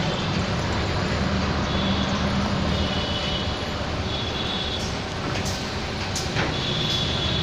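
Steady engine and road noise of a moving vehicle, heard from inside the vehicle, with a continuous low hum and a faint high tone that comes and goes.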